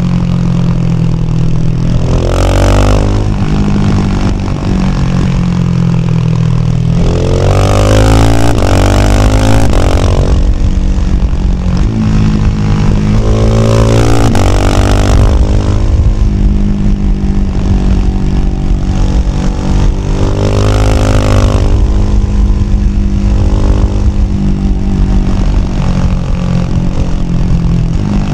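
Husqvarna Vitpilen 701's single-cylinder engine through a Shark SRC 4 slip-on exhaust while riding. It cruises steadily and pulls up in revs about four times, near 2, 8, 14 and 21 seconds, with rushing wind rising at each pull.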